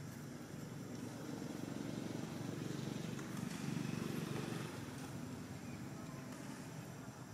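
Low rumble of a distant vehicle, swelling over the first few seconds and fading after about four and a half seconds.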